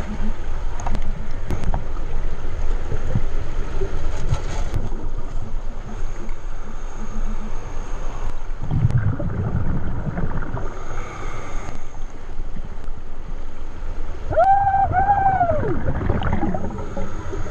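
Steady underwater rumble and bubbling of moving water, with scattered clicks. About fourteen seconds in come two short tones, each rising and falling in pitch.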